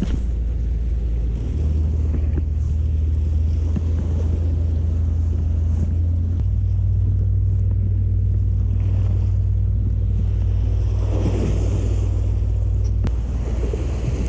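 Sea surf washing against rocks, with wind buffeting the microphone in a constant low rumble; a wave breaks louder about eleven seconds in.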